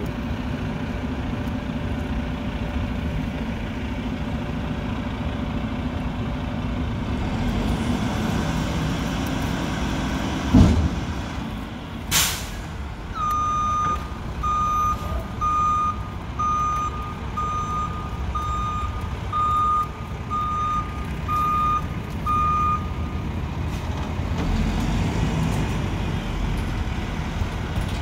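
Mack front-loader garbage truck's diesel engine running, with a short sharp air-brake hiss about twelve seconds in. Then its reverse alarm beeps about eleven times, a little under one beep a second, as the truck backs up.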